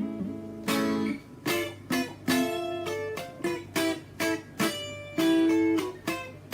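FGN Stratocaster electric guitar played straight into a Fender Studio Valve SVH (G408CE) tube amp, with single notes and short chords picked one after another in a fairly clean tone. Each note starts sharply and rings away, over a steady low amp hum.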